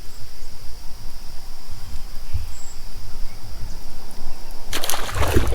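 Insects buzzing as a steady high drone, over an uneven low rumble. Near the end comes a short burst of rough, splashy noise.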